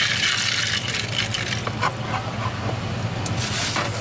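Knife scraping and tapping on a wooden cutting board: a scrape at the start, a few light knocks, and a second scrape near the end.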